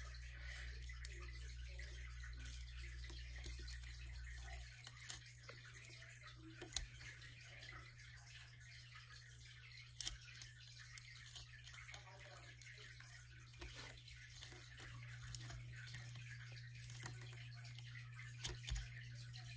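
A snap-off utility knife cutting into the layers of a tape ball: faint crackling and scraping of tape with scattered sharp little clicks.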